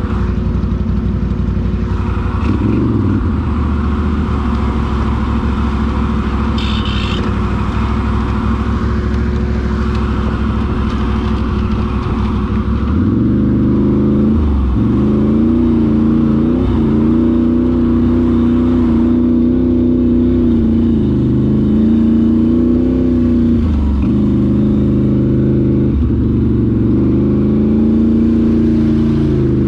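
ATV engine running under load. About halfway through the throttle opens up, and it then revs up and down repeatedly.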